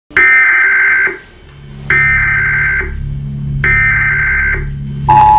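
Emergency Alert System broadcast signal: three roughly one-second bursts of high, buzzing digital data tone with short gaps, then the steady two-tone attention signal begins near the end. A low drone hums underneath from about a second in.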